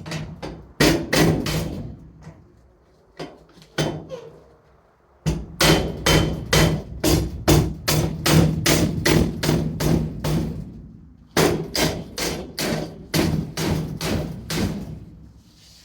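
Hammer blows on steel hat channel, driving a tight-fitting piece into its gap. A few separate strikes come first, then two long runs of quick blows, about three a second.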